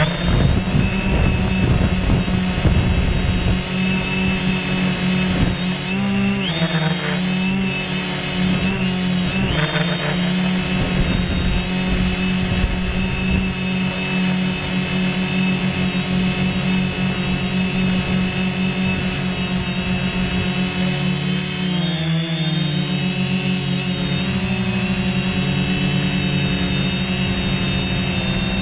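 Quadcopter drone's electric motors and propellers whining steadily, heard loud from on board the drone. The pitch shifts briefly several times as the drone changes speed, and there is low buffeting in the first few seconds.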